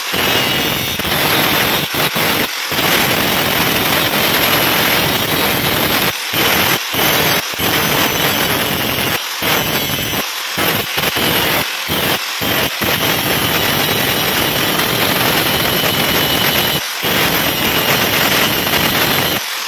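Angle grinder grinding down a steel weld bead: a loud, harsh grinding noise of the disc against the metal, with several brief dips along the way.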